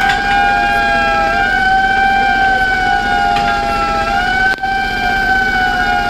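A siren sounding in a steady, repeating pattern: its two held tones dip and glide back up about every two and a half to three seconds. Its sound briefly cuts out about four and a half seconds in.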